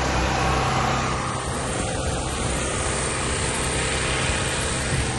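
Steady low mechanical rumble with a faint hum and a hiss over it, city background noise with no single clear event.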